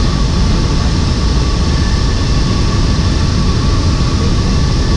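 Steady, loud cabin noise of a military transport aircraft in flight: engine noise and rushing air inside the cargo hold, with a faint steady hum.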